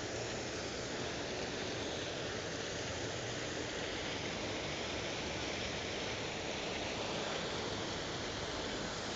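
Waterfall: falling water rushing as a steady, even hiss with no breaks.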